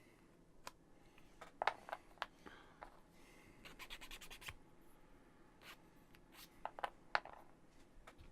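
Small laser-cut MDF kit pieces being handled and fitted: scattered light clicks and taps with soft scraping, and a quick run of ticks about four seconds in.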